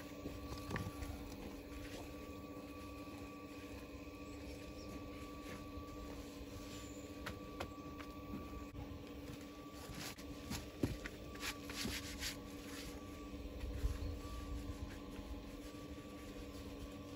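Mason's trowel scraping and tapping on mortar and stone while stones are bedded into a wall, the sharp scrapes and taps clustering about ten to thirteen seconds in. A steady low hum runs underneath.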